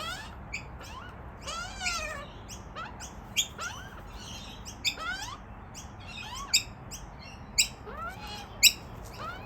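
Juvenile Australian magpies begging for food: repeated squeaky calls that rise and fall, with sharp high chips about once a second from a few seconds in.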